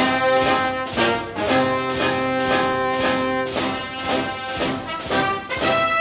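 Background music: held notes over a steady beat, about two beats a second.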